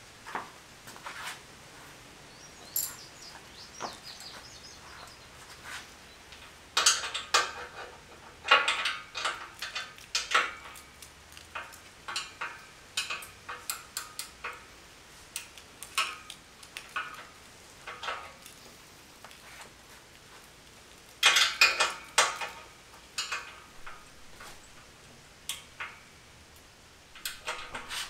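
Irregular metallic clicks and clinks of hand tools and bolts working on a metal dumbbell rack frame during assembly, with two busier bursts of clattering, one about seven seconds in and one about twenty-one seconds in.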